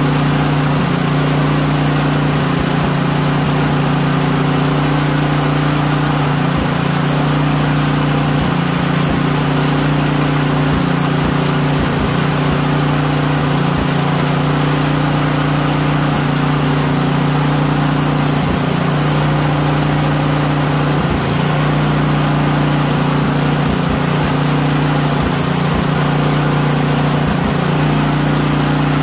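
Brand-new small gasoline engine running steadily, rattling hard enough to shake on its table. It is burning phase-separated, water-laden gas dosed with Phaser 3000, and its speed steps up and down slightly every few seconds.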